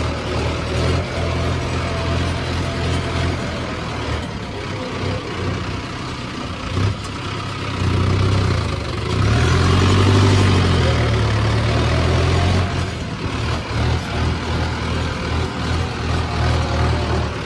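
Tractor diesel engine running steadily, heard from the driver's seat. About nine seconds in the revs rise, then ease back down a couple of seconds later.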